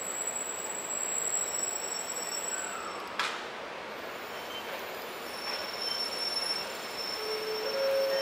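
700 series Shinkansen train rolling slowly into the platform with a steady rushing noise. Thin, high-pitched squeals from its wheels and brakes set in during the second half, and there is a single sharp click about three seconds in.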